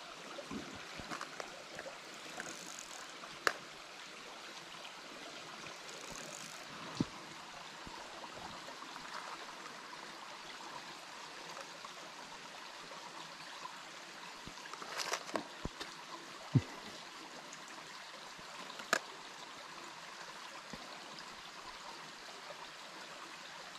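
Small woodland stream trickling and running steadily, with a few sharp clicks and knocks scattered through it.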